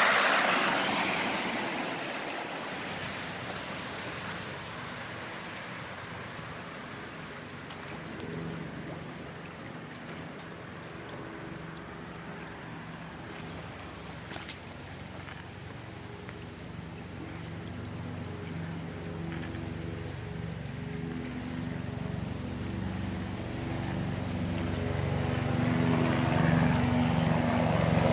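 Heavy rain and running floodwater as a steady rushing hiss. A vehicle passes loudly right at the start, and a vehicle engine hum grows louder through the second half.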